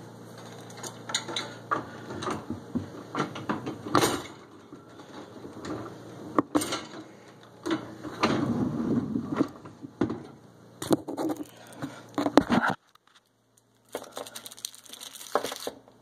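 Water from a Whirlpool dishwasher's spray jets splashing and pattering unevenly inside the tub, with knocks, over a low steady pump hum. About thirteen seconds in everything cuts off abruptly for a moment, then a short burst of splashing and the hum return.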